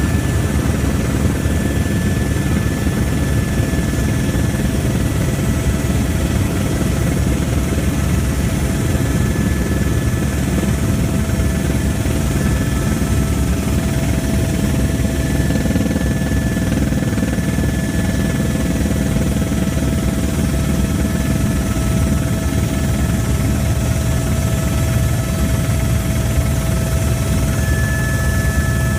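Helicopter in steady flight: loud, unbroken rotor and engine noise with a steady high whine over it.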